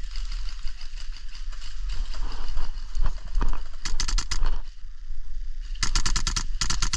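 Rapid bursts of airsoft gunfire: a short burst about four seconds in and a longer one near the end, each a quick run of sharp cracks.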